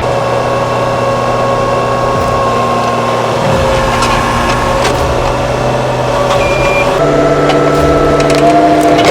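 Caterpillar 305 mini excavator's diesel engine running steadily under working load, with a few light knocks from the digging. The engine note steps higher about seven seconds in.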